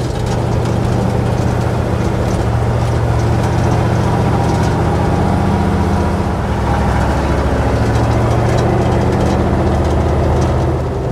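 Diesel engine of a MAN KAT1 truck running steadily under way, heard from inside the cab, with tyre noise and the crunch of gravel on a dirt track. The engine note changes briefly about six to seven seconds in, then settles again.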